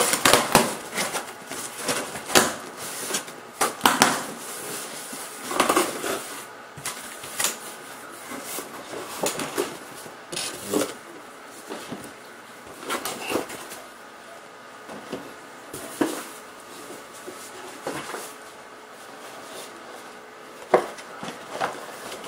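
Cardboard shipping box being opened and handled: flaps rustling and scraping, with irregular knocks and taps of cardboard on a wooden tabletop.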